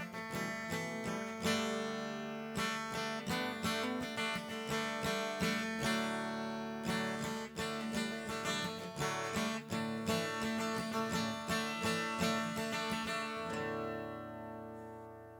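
Acoustic guitar strummed in a steady rhythm with no singing. Near the end a last chord is left ringing and fades out.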